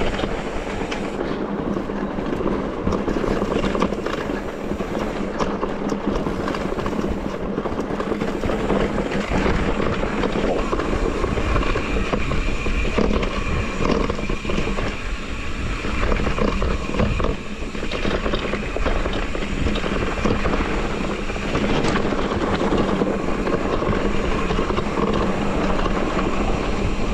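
Electric mountain bike clattering and rumbling over a rough, rocky track, a steady loud rattle with many small knocks throughout.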